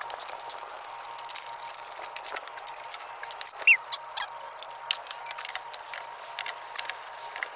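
Scattered metallic clicks and clinks of a lug wrench and lug nuts being worked on a truck wheel, irregular and sharp, with one short high-pitched chirp about three and a half seconds in.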